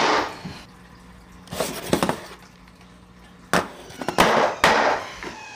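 A hammer knocking the edge of a new plywood subfloor panel to drive it tight into place. About six sharp blows come singly and irregularly, with a lull of a second or more between the second and third groups.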